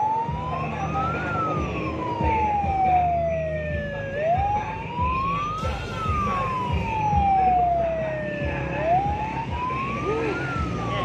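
Vehicle siren on a white van with a roof light bar, wailing slowly: each cycle climbs over about a second and falls away over about three seconds, repeating about every four and a half seconds. Vehicle engines run underneath.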